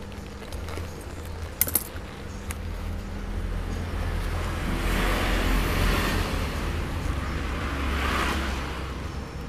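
A cowhide leather jacket being handled and turned over on a sewing table, rustling in two swells in the middle and near the end, over a steady low hum. Two sharp clicks about a second and a half in.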